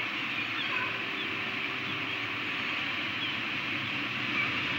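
A steady rushing noise, with a few faint, short high chirps scattered through it: peregrine falcon chicks cheeping while being fed at the nest.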